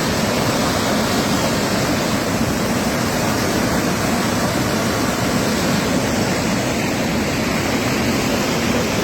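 Floodwater rushing in a steady, loud roar, with no breaks or separate knocks.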